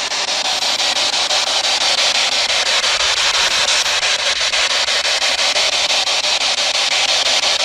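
Spirit box sweeping through radio frequencies: a steady loud hiss of radio static and synthetic noise, chopped into rapid regular steps as it scans.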